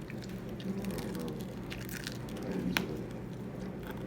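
Close-miked eating: wet chewing and mouth smacks with a few short, sharp crunchy clicks, the sharpest about two-thirds of the way through, over a steady low hum.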